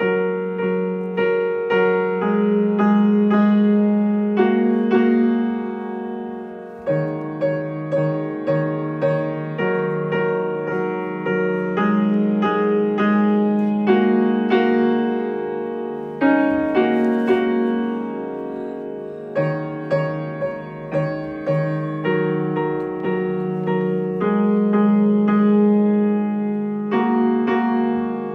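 Grand piano played solo: a slow, gentle piece with notes struck about twice a second over held lower notes, swelling and easing in loudness.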